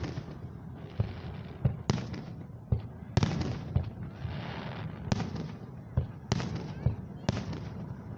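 Aerial fireworks shells bursting overhead in a steady barrage: about ten sharp bangs, each with a short echoing tail, and a stretch of hissing crackle about four seconds in.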